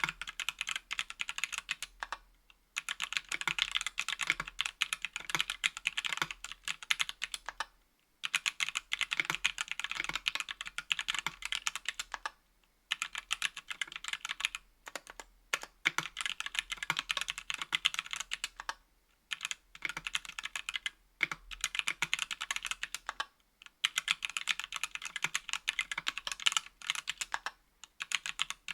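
Typing on a 60% aluminium mechanical keyboard with Everglide Oreo tactile switches and GMK keycaps: fast runs of key clicks and bottom-outs, broken by short pauses every few seconds.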